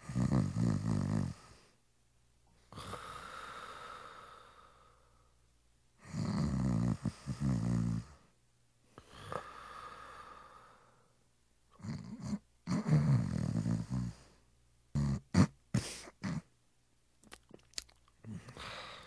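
A person snoring: three loud, rattling snores about six seconds apart, the first two each followed by a quieter breathy exhale, then a few short, choppy sounds near the end.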